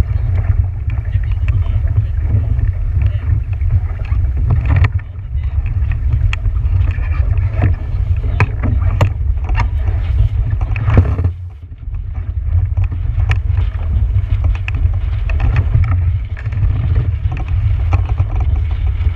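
Wind rumbling on the microphone aboard a boat on open water, with scattered splashes and knocks; the rumble drops off briefly about halfway through.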